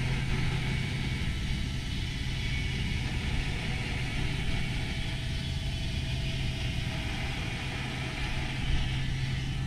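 Electric lift motor of an RV power bed running steadily with a low hum as it lowers the bed.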